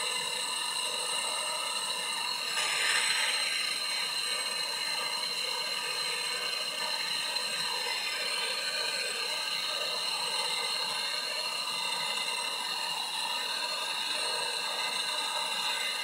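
Steady hiss of a handheld gas torch flame, briefly louder about three seconds in, as it heats a refrigerator's tube joint for brazing with a solder rod to seal a refrigerant leak.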